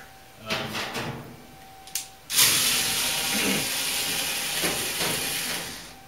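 A click about two seconds in, then a loud, steady hiss that starts suddenly and lasts about three and a half seconds.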